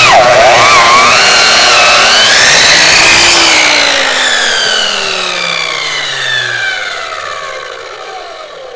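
Electric chop saw cutting through a bone-in New York strip loin: its whine dips sharply as the blade bites and then climbs back. About three and a half seconds in the motor is let go and winds down, the whine falling steadily in pitch and fading.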